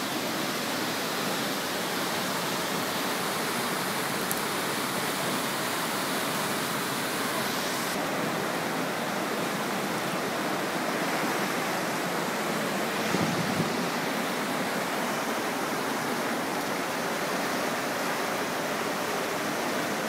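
Steady rush of a creek in flash flood, the floodwater running as a fast, churning torrent.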